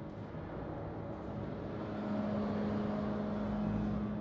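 Steady machinery hum of a heavy open-die forging press. About halfway through, a steady low tone comes in and the sound gets a little louder, holding until near the end.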